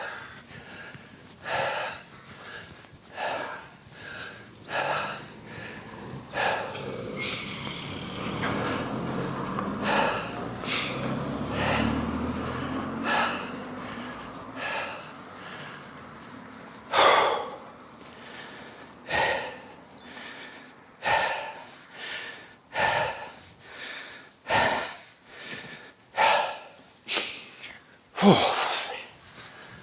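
A cyclist panting hard while pedalling up a steep climb, loud rhythmic breaths about once a second. A low rumble swells and fades in the middle, a vehicle passing on the road.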